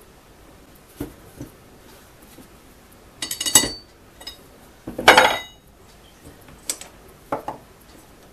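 Metal parts of a rotary hammer's nose piece clinking and clattering against each other and a steel workbench as they are handled. Two louder, ringing clatters come about three and a half and five seconds in, with lighter taps before and after.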